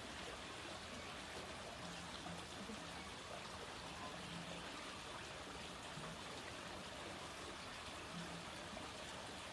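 Faint, steady sound of running water, like a small stream or inflow trickling and pouring.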